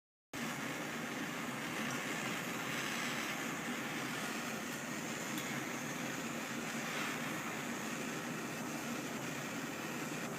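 Steady, even rushing hiss, like blowing air or a fan, starting just after a brief dead-silent break.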